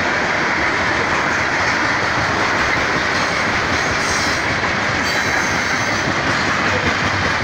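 Freight train of covered hoppers and tank cars rolling past at close range: a steady, loud noise of steel wheels running on the rails.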